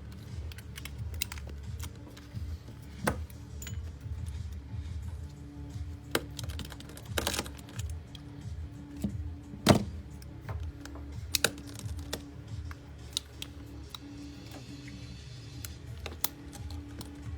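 Irregular small clicks and taps of an iPhone being reassembled by hand, as its screen is refitted, with a louder knock near the middle, over faint background music.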